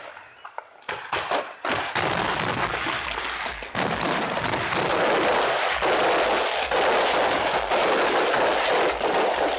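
Fireworks display: a few separate bangs, then from about two seconds in a dense, continuous barrage of bangs and crackling that thickens further about four seconds in.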